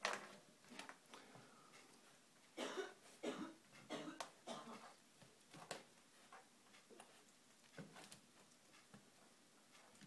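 Corgi puppy snuffling in short irregular puffs as it noses a small object on a tile floor, with a few sharp clicks on the tiles.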